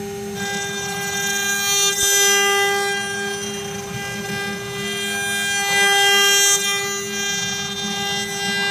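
HG-1325 wood CNC router's spindle whining steadily while its bit carves a wood cylinder turning on the rotary fourth axis. The cutting noise swells louder about two seconds in and again about six seconds in.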